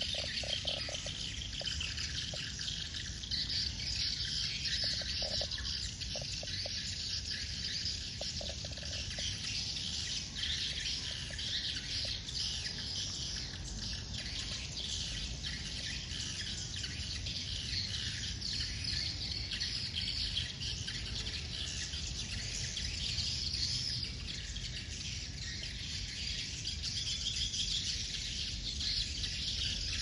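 A large flock of small birds chirping and twittering in a dense, continuous high chorus. A steady low rumble runs underneath, and a few short, lower-pitched calls come in the first ten seconds.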